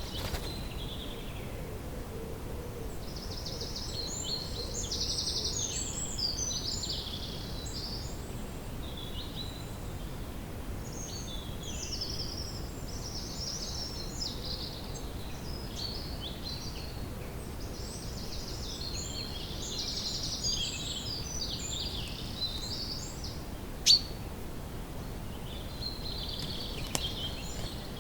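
Woodland ambience: songbirds chirping and trilling in repeated bursts over a steady low background rumble. A single sharp click stands out near the end.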